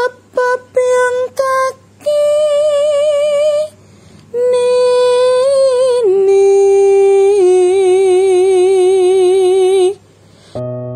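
A woman singing alone, slow held notes with a wide vibrato: a few short notes first, then long phrases, the pitch stepping down about six seconds in. Piano notes come in just before the end.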